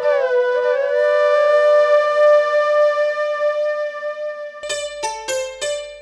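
Instrumental music: a flute melody with ornamented slides settling into long held notes, then, near the end, a run of short, detached notes over a low drone.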